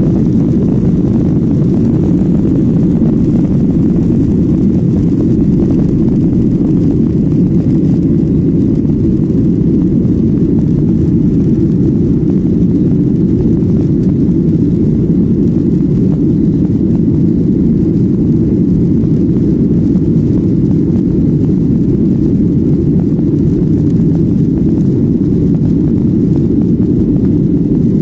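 Jet airliner's engines and rushing air heard from inside the passenger cabin during takeoff and the initial climb: a loud, steady, deep rumble.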